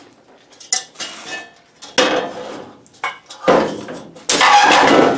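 Metal bracket pieces clanking and scraping as they are handled and fitted into a furnace filter slot: several separate clanks, a sharp one about two seconds in, then a loud scrape near the end.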